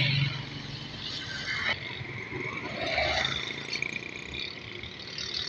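Road traffic: a loaded truck's diesel engine running with a low hum as it passes close, then a sudden break a couple of seconds in and ongoing street traffic noise.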